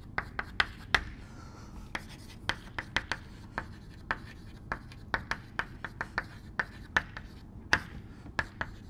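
Chalk writing on a blackboard: quick, irregular taps and short scrapes, several a second, as the letters and symbols are drawn.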